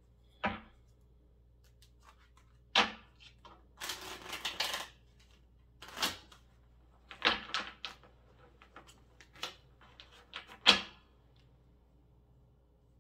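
A tarot deck being shuffled and handled: a series of sharp card clicks and taps, with a rustling shuffle lasting about a second, about four seconds in.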